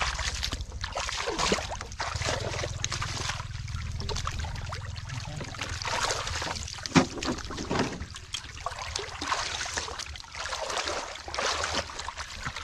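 Hands sloshing and splashing through shallow muddy water, with dribbling as water runs off, and one sharp slap about seven seconds in. A low steady hum lies underneath for the first half.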